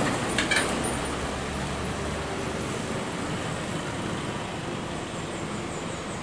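Heavy diesel dump trucks running in a queue, a steady engine and traffic rumble that eases after about two seconds, with a couple of short clicks about half a second in.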